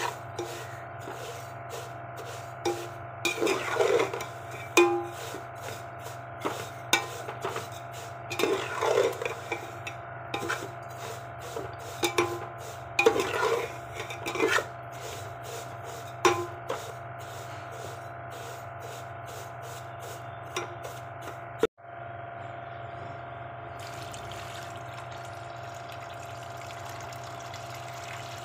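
A spatula scraping and stirring dry roasting vermicelli in a steel pot: irregular scratches and clicks of the spatula on the metal, with the strands rustling, in several louder spells. This runs over a steady hum. The stirring stops suddenly about two-thirds through, and only the hum goes on.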